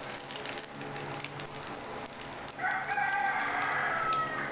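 Cumin seeds sizzling and crackling in hot oil in a small steel pan, a tadka. About two and a half seconds in, a long level call holds for nearly two seconds over the sizzle and is the loudest sound.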